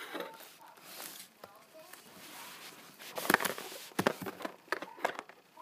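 Handling noise from a Dots candy package being gripped and turned close to the microphone: irregular clicks and rustles, loudest about three seconds in.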